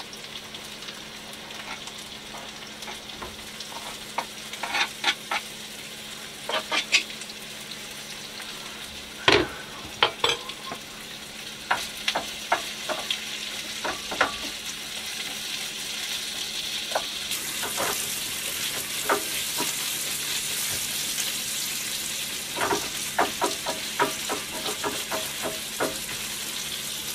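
Chopped potatoes, carrots, sausage and green peppers sizzling in margarine in a frying pan on a gas stove, with frequent clicks and scrapes as a spoon and a wooden spatula tip the food in and stir it. The sizzle gets louder about two-thirds of the way through.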